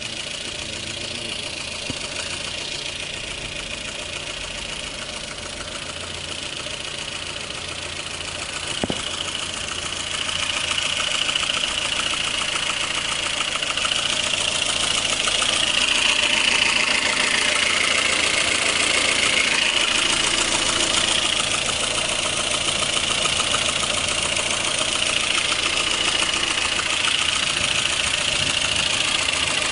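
Lada Kalina engine running with an extraneous knock. The engine gets louder about ten seconds in, with a single sharp click just before.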